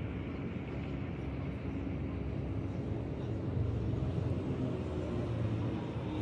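Steady low rumble of motor vehicle engine noise.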